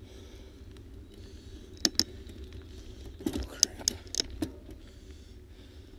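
Steady low rumble of tyres rolling over a rough paved road, with sharp rattling clicks twice: a pair about two seconds in and a cluster a second or so later.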